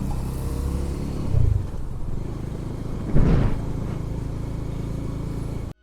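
Bajaj Dominar 400's single-cylinder engine running steadily at cruising speed, with wind and road noise. There is a brief louder rush of noise a little past three seconds in, and the sound cuts off suddenly near the end.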